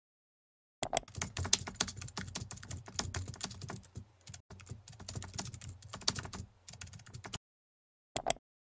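Rapid typing on a computer keyboard: a fast run of keystrokes with a brief pause about halfway, stopping shortly before the end. It is followed by two quick clicks near the end.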